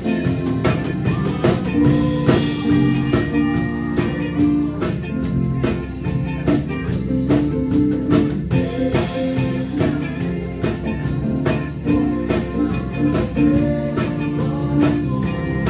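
Live church band playing: electric bass and electric guitar through amplifiers, over a drum kit keeping a steady beat of about three to four hits a second.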